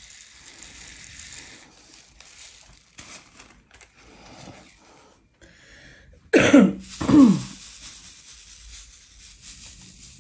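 A person coughs twice in quick succession, each cough dropping in pitch, the second about a second after the first. Before this, faint rustling of small plastic drill baggies.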